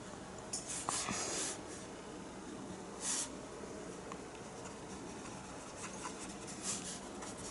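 Paintbrush bristles stroking and dabbing acrylic paint on canvas: a few short, faint strokes, the clearest about one and three seconds in.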